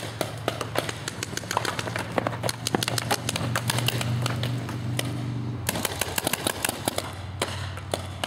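Paintball markers firing: many sharp pops in quick, irregular succession, some in fast strings, over a steady low hum.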